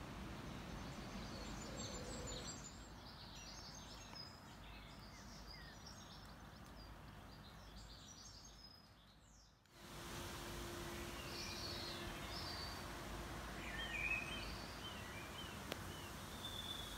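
Small birds singing and chirping in a garden over steady outdoor background noise. The sound dips and cuts just before ten seconds in, and the birdsong picks up again after it, with a faint steady hum for a few seconds.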